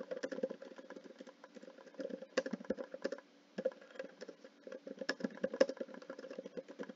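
Typing on a computer keyboard: a run of quick, uneven key clicks, with a short pause about three seconds in.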